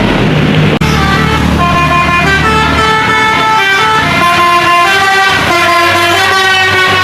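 A bus's basuri multi-tone air horn playing a stepping melody of held notes, several tones sounding at once. Before it starts, about a second in, a heavy engine is heard, cut off by a brief dropout.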